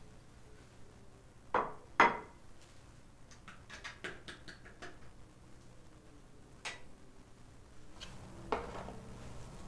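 Kitchenware being handled: two sharp knocks about a second and a half in, then a run of light clinks and ticks, and two more single knocks near the end.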